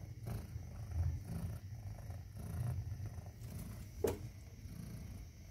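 Persian mother cat purring in a low, continuous rumble that swells and fades rhythmically while her newborn kittens nurse. A single sharp click sounds about four seconds in.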